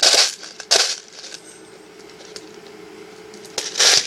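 Hollowed-out pen tube jabbed hard into a container of BBs, the loose BBs rattling and clicking against each other in short bursts as the tube fills itself: two quick bursts at the start, then a lull, then more bursts near the end.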